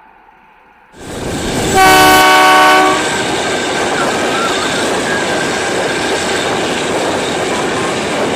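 A train rushing past close by: its noise rises sharply about a second in, the horn sounds one blast of about a second, then the wheels and cars run on with a steady loud rumble.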